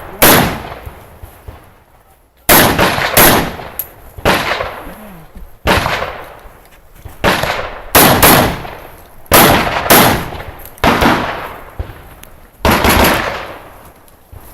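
Rifle shots fired in a course of fire: about a dozen loud shots at uneven intervals, some in quick pairs, each with a long echoing tail.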